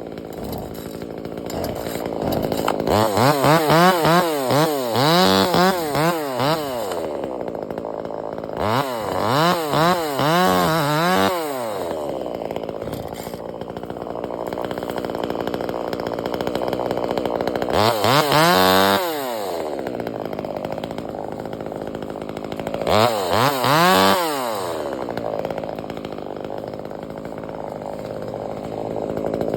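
Chainsaw running at idle and revved up four times, its pitch climbing and dropping back with each burst. The first two bursts are longer and wavering, the last two shorter.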